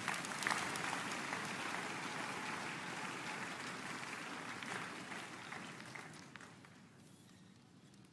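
Congregation applauding, a dense crackle of clapping that holds for several seconds and then dies away over the last few seconds.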